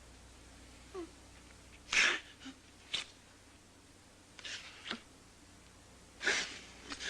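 A woman crying: short, sharp breathy sobs and gasps coming every second or so, with a brief falling whimper about a second in.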